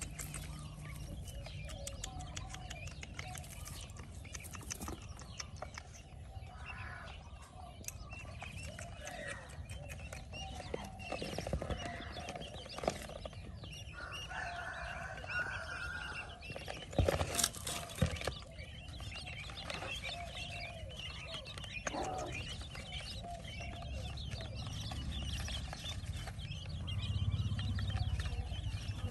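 Newly hatched quail chicks peeping and chirping in a plastic bowl, with a couple of sharp knocks about 17 and 18 seconds in.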